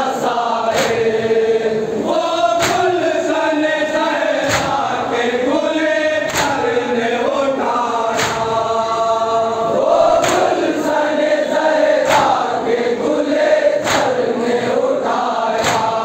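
A group of men chanting a noha (Urdu mourning lament) in unison behind a lead reciter on a microphone. Sharp slaps of matam, hands striking chests, keep an even beat about once every two seconds.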